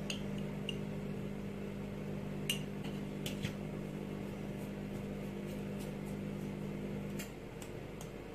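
Small glass spice jars clinking and tapping lightly, several separate clinks, as spices are shaken out of a shaker jar. Under them runs a steady kitchen-appliance hum that cuts off about seven seconds in.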